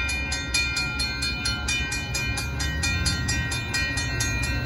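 Railroad crossing warning bells ringing rapidly, about five strokes a second, over a steady low rumble. The bells signal a train approaching the crossing.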